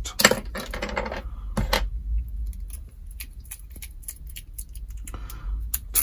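Small metallic clicks and taps of a brass padlock lock cylinder and its key being handled, with a denser run of clicks in the first second or so.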